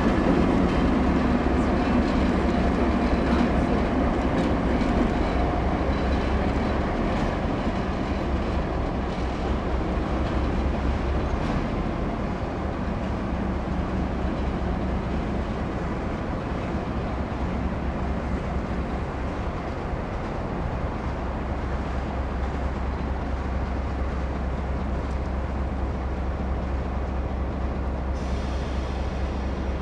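Diesel locomotive of the ČSD T478.3 class running as it moves away. Its engine rumble fades over the first dozen seconds, then settles into a steady low drone.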